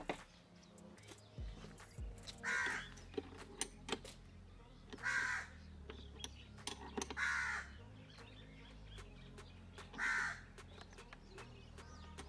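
A crow cawing four times, a call every two to three seconds, with faint clicks between the calls as a bolt on a scooter's mirror mount is turned by hand.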